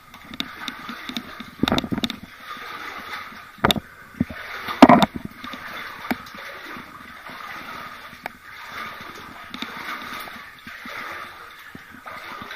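Footsteps wading and splashing through shallow water on the floor of a flooded mine tunnel, with a few sharper sounds, the loudest about five seconds in.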